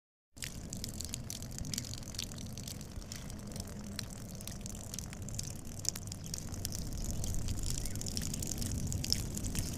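A person urinating: a steady splashing stream with small crackles that cuts in suddenly just after the start and grows a little louder in the second half.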